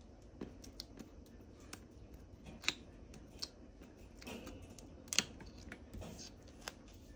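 Faint paper-handling sounds of fingers working and pressing a small die-cut cardstock piece on a desk: scattered light taps, clicks and rustles, with two sharper clicks about two and a half and five seconds in.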